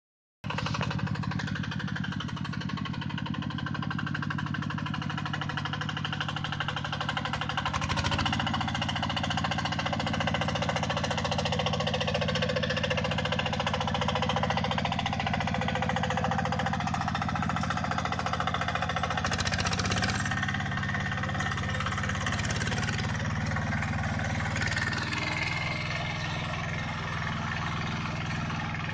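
A tractor engine driving a rotary tiller, running steadily; its note shifts about 8 seconds in and again about 20 seconds in.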